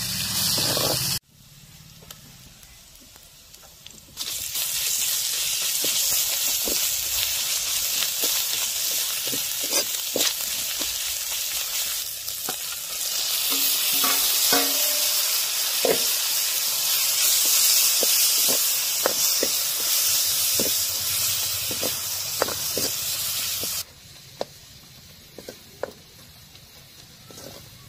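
Onions, dried red chillies and spices sizzling in hot oil in a steel kadai, with the metal ladle clicking and scraping against the pan as it stirs. The sizzle cuts out about a second in, comes back a few seconds later, and grows louder about halfway through as chopped tomatoes go in. It stops a few seconds before the end, leaving only a few ladle knocks.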